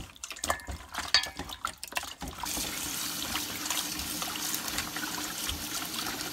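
Gloved hands rubbing and squelching wet raw pork spare ribs in a stainless steel bowl. About two and a half seconds in, a kitchen tap turns on and runs steadily into the bowl as the ribs are rinsed.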